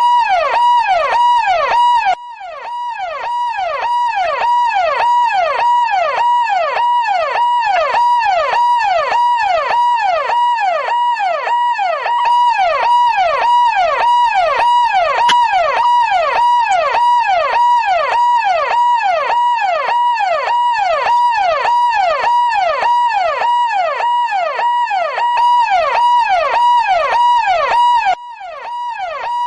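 Police car siren in a fast yelp, its pitch sweeping up and down about two to three times a second. The level dips briefly and builds back up about two seconds in and again near the end.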